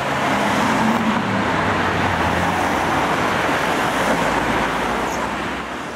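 Road traffic: a motor vehicle passing close by, its engine note fading within the first couple of seconds under steady tyre and road noise.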